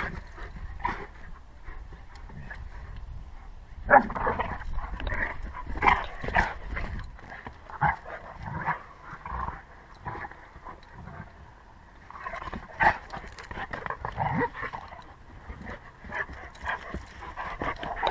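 Two dogs, a young German shepherd and a chocolate Labrador, play-fighting, with short irregular growls, whines and yips that come thickest from about four seconds in.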